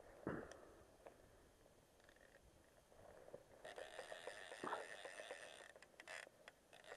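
Faint handling noise from a fly angler working the rod and line close to a body-worn camera: a few soft knocks, then a faint steady hiss that sets in about halfway.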